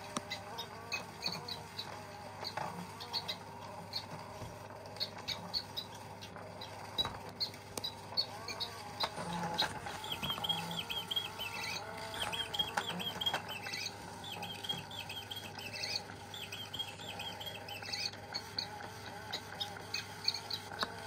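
Electronic bird chirps and tweets from a battery-powered cat toy, with quick repeated trills over the middle stretch and a steady electric hum underneath.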